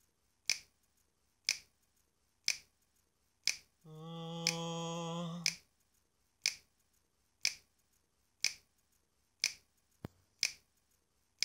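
Finger snaps in a steady beat of about one a second, about ten in all. Between about four and five and a half seconds in, one long low hummed note sounds under the snaps.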